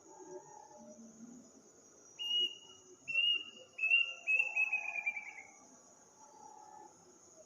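A bird's whistled call: several clear, high whistles starting about two seconds in, ending in a quick run of notes that falls in pitch. Crickets or other insects chirr steadily throughout.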